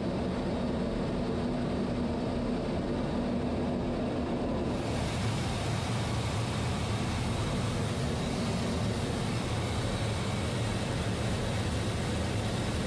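Steady roar of jet engines and rushing air heard from aboard a jet aircraft in flight, with a faint low hum under it for the first few seconds. About five seconds in, the hiss turns brighter and fuller.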